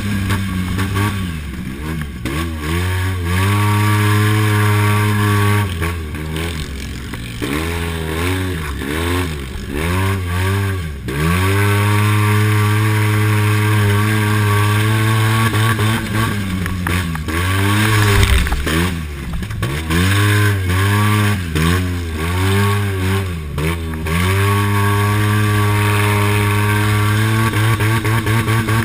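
Polaris RZR S 800's twin-cylinder engine, heard from the cockpit, running hard under racing load. Its pitch dips and climbs back again and again as the throttle is lifted and reapplied, between long stretches held steady at high revs.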